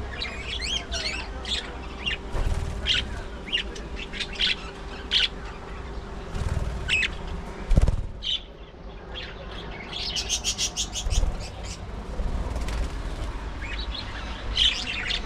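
A flock of budgerigars chirping and chattering: many short, high chirps in quick succession, with a fast run of rapid chirps about ten seconds in. A sharp knock stands out near the eight-second mark.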